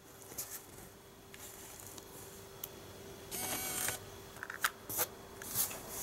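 Nikon Coolpix S7000's zoom lens motor whirring for under a second as the lens retracts, a little over three seconds in, followed by a few small clicks. The lens travels smoothly now that its lens error has been repaired.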